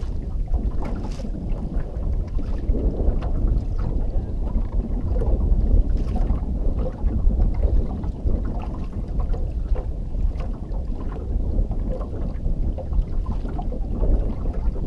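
Wind buffeting the microphone in a steady low rumble, with water lapping and slapping against the hull of a small fishing boat in light ticks.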